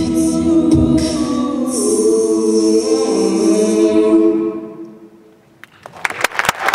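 All-female a cappella group singing a held closing chord, with vocal-percussion thumps in the first second; the chord dies away about four and a half seconds in. After a brief hush, audience applause breaks out near the end.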